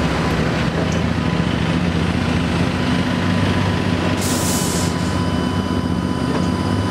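London double-decker bus engine running steadily at low speed, with a short hiss of compressed air from its air brakes about four seconds in.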